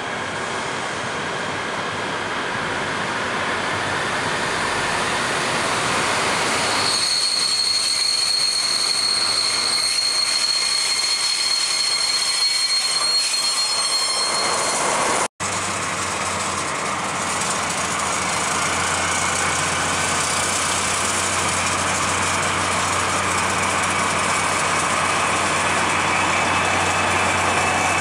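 Two DB class 218 diesel-hydraulic locomotives draw a passenger train into the platform. The train's noise grows as it approaches, then a high, steady brake squeal sounds for about seven seconds as it slows. After a brief break in the sound, the locomotives' diesel engines idle steadily at a standstill.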